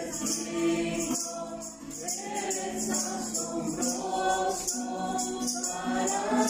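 A small group of young people singing a Spanish-language worship song together into microphones, with a shaken hand-percussion beat keeping time.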